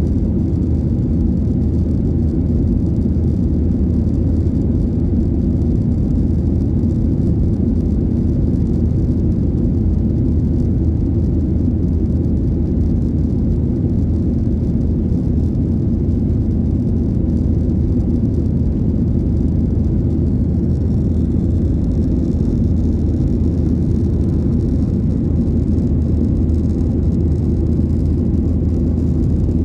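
Steady cabin noise of a Boeing 737-800 in flight, heard inside the cabin at a window seat: a low, even roar of the CFM56-7B turbofan engines and the airflow past the fuselage, with no changes in power.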